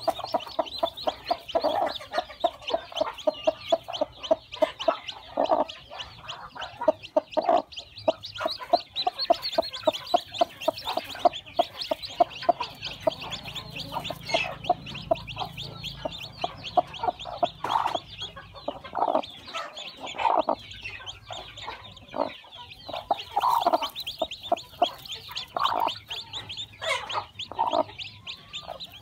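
A broody hen clucking in short low bursts over her newly hatched chicks, which peep rapidly and without a break.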